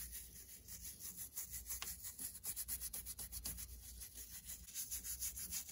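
Soft-bristle toothbrush brushed quickly over an Alcantara steering-wheel rim to fluff up the fibers: faint, rapid scratchy strokes, several a second.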